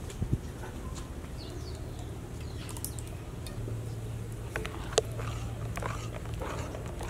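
Metal spoon stirring pancake batter in a glass bowl, with light clinks against the glass several times in the second half. Faint bird chirps and a steady low hum sit behind it.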